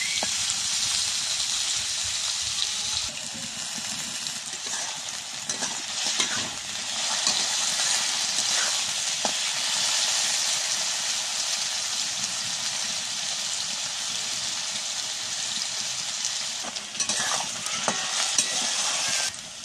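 Potato sticks and green chillies sizzling in hot oil in an aluminium kadai, with a metal spatula scraping and clinking against the pan as they are stirred. The sizzle drops off sharply near the end.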